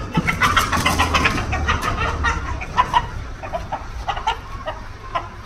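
Desi rooster squawking and clucking as it is grabbed and held by hand: a rapid flurry of calls in the first couple of seconds, then scattered single calls.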